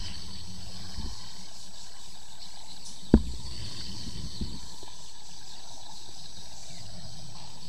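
Underwater sound picked up by a camera in its housing: a steady muffled hiss and low rumble, with one sharp knock about three seconds in and a few fainter knocks.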